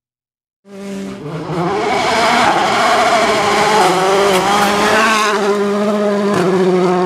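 Volkswagen Polo R WRC rally car's 1.6-litre turbocharged four-cylinder engine driven hard on a gravel stage, revving up and down through gear changes as the car passes. It starts about a second in.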